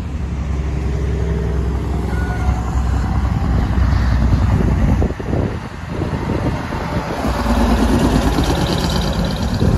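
Semi-truck diesel engines running as trucks pull along the road. They build to their loudest near the end, when a long-hood semi with a refrigerated trailer drives close past.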